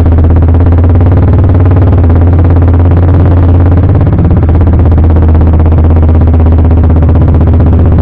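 CFMoto 300SR's single-cylinder engine running through an Akrapovič full-system exhaust, a loud, steady, low exhaust note while the bike rides along.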